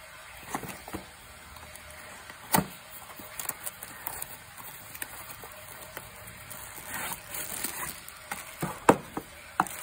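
Box and packaging handled while a tripod kit is unpacked: light rustling with scattered clicks and taps, and sharper knocks about two and a half seconds in and near the end.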